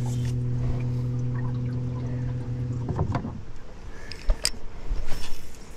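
Electric trolling motor humming steadily on a jon boat, then winding down and shutting off about three seconds in. A few light clicks and knocks from handling the fishing rod and reel follow.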